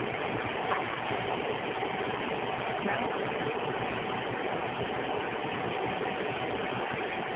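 A steady mechanical hum with a faint constant tone running through it.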